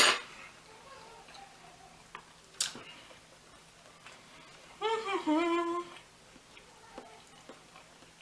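A woman's short hummed "mmm" about five seconds in, its pitch dipping and then holding. A sharp clatter at the start and a single sharp click a couple of seconds later.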